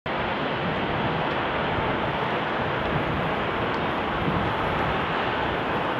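Jet airliner engine noise: a steady, even roar that cuts in abruptly and holds level.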